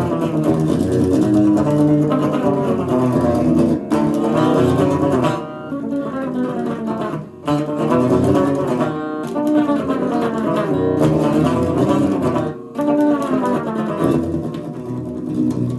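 Electric guitar played unplugged, with no amplifier, picking a metal riff with some bent notes and a few brief pauses.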